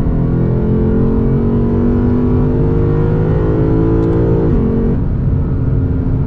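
Lexus RC F's 5.0 L V8 under acceleration, heard inside the cabin: its pitch rises steadily for about four and a half seconds, then drops suddenly and runs on at a lower, steady pitch.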